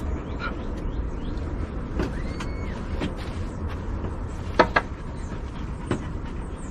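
Light clicks and knocks, with two sharp knocks close together a little past halfway, over a steady low rumble. A short squeaky rising-and-falling tone comes about two seconds in.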